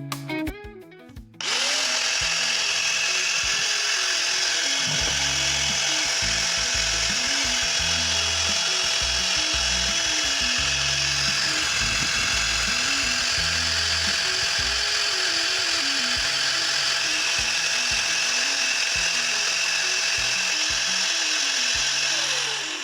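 Angle grinder switched on about a second and a half in, spinning up quickly and running steadily with no load, then starting to wind down near the end. This is a test run after its gearbox was greased with Vaseline to cure overheating caused by too little factory lubricant.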